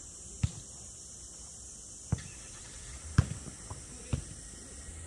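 Jokgu ball being kicked and bouncing on the court during a rally: five sharp knocks, about half a second in, just after two seconds, a little past three seconds (the loudest), and twice more near four seconds. A steady high hiss runs underneath.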